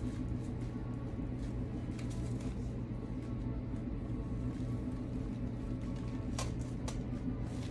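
Steady low machine hum in a small room, with light rustling and a few soft clicks as artificial silk flowers are handled and adjusted, the sharpest two about six and a half and seven seconds in.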